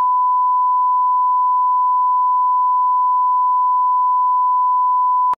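Television colour-bar test tone: a single steady, pure beep that holds one pitch and cuts off abruptly at the very end.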